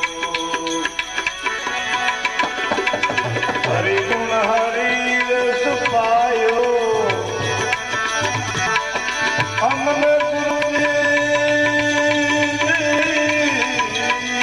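Bhajan accompaniment on tabla: a steady run of hand-drum strokes, the low drum gliding in pitch, under long held melody notes.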